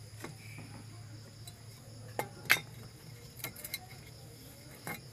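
Steady high-pitched insect drone over a low hum, broken by a handful of short sharp clicks and taps, the loudest about two and a half seconds in.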